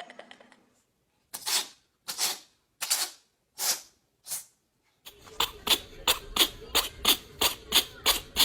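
A cat sneezing five times in quick succession, short sharp sneezes under a second apart. About five seconds in, a faster, even run of short sneezy bursts follows, about three a second.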